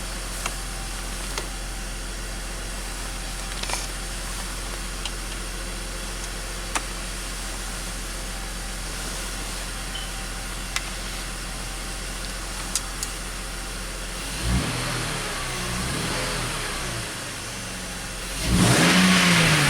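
A warm BMW X5 six-cylinder engine idling steadily while it is checked for a misfire. It is then revved twice near the end, pitch rising and falling each time, and the second rev is louder.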